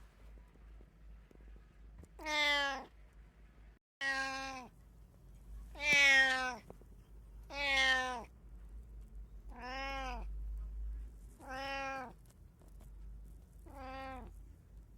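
Domestic cat meowing over and over: seven drawn-out meows about two seconds apart.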